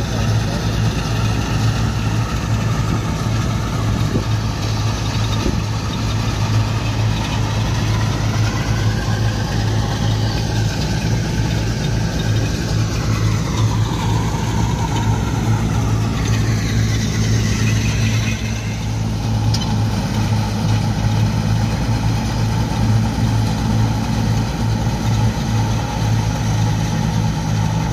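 Tractor-driven Punni back-to-back thresher running steadily: the tractor's diesel engine working under load through the power take-off, with the thresher's drum and blower adding a steady whir over a constant low hum. Around the middle, some of the higher machine tones slide down and back up.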